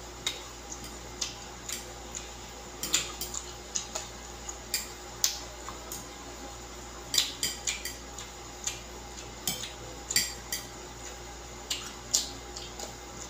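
Eating sounds: chopsticks clicking and scraping against a plate and crisp chewing of bitter gourd slices, as irregular sharp clicks, some in quick clusters, over a steady low hum.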